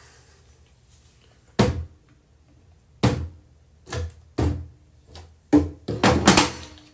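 A series of sharp wooden knocks and thunks, irregularly spaced, from handling cabinet drawers and doors during hardware installation, with a denser cluster of knocks near the end.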